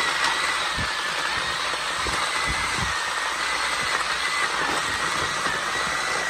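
Large pot of chopped horse bones at a hard rolling boil, a steady rushing roar with a faint thin whistle running through it. A few low thumps come between about one and three seconds in.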